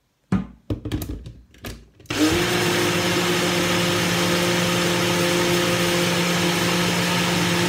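A few short knocks, then about two seconds in a Ninja blender's motor starts with a brief rising whine and runs at a steady pitch, blending a berry smoothie.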